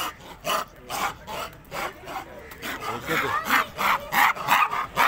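Footsteps scraping on a paved path, about two a second, coming faster and louder in the second half.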